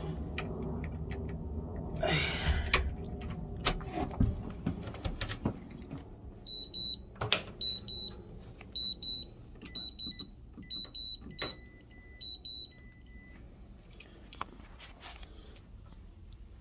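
Keys jangling and clicking, then about ten short, high electronic beeps at uneven intervals from a wall-mounted keypad panel, like buttons being pressed on a house alarm keypad.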